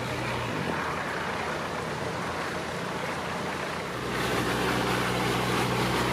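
Motor boat engines running slowly on a river, a low steady hum over water and background noise. About four seconds in, a louder, deeper engine hum takes over as another cruiser approaches.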